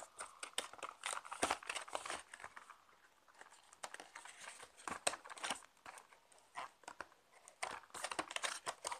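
Mouse packaging being handled by hand: irregular crinkles, clicks and light taps as fingers work at the tray holding the mouse.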